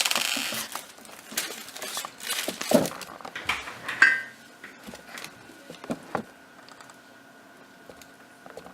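Parts of a projector stand being handled: a brief scraping rustle at the start, then scattered clicks and knocks as a wheel is pushed onto a leg and turned.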